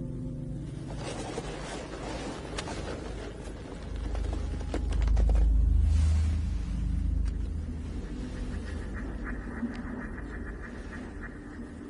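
A deep rumble swells up about four seconds in and fades away again over a few seconds, over a crackling noise bed with scattered clicks. Faint rapid ticking sounds near the end.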